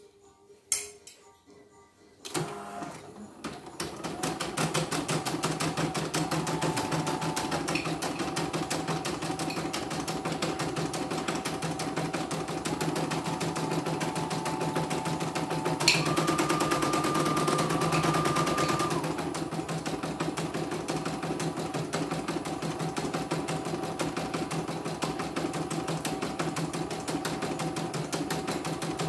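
Computerized embroidery machine starting up about two seconds in and then stitching at a steady pace: a fast, even needle clatter over a motor hum, with a higher whine joining for a few seconds past the middle. It is a test-stitch after repair for messy, tangled stitching.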